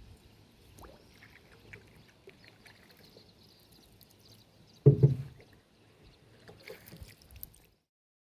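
Small tour boat on a calm lake, with faint water and hull noise and scattered light knocks. A loud, low double thump comes about five seconds in.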